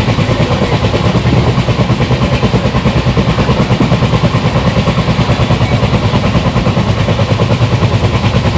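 Twin EMD diesel locomotives running under power with the moving train: a loud, steady, rapid throbbing.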